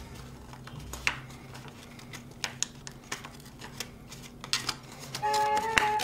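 Sheet of A4 paper crackling and crinkling as it is folded and creased by hand: scattered crisp clicks and rustles over a faint hum. Background music comes back in near the end.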